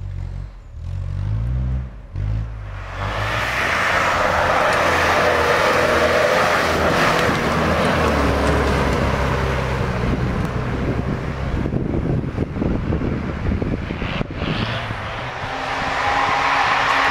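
Off-road vehicle engine running at low revs, then from about three seconds in revving loud and hard under load as the vehicle drives up a muddy trail, settling to steadier revs near the end.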